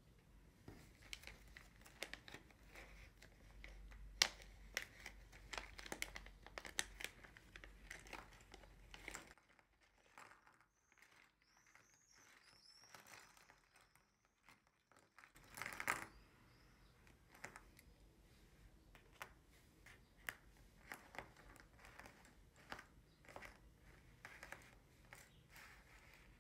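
Quiet handling sounds: paper sheets and a plastic bag crinkling, with many small clicks. After a near-silent stretch midway, a louder rattle and crinkle as the bag of acrylic puzzle pieces is tipped out, then light clicks as the pieces are set down one by one on the paper.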